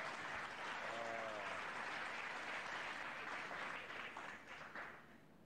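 Studio audience applauding, a dense patter of many hands clapping that dies away over the last second or so, with a brief voice rising from the crowd about a second in.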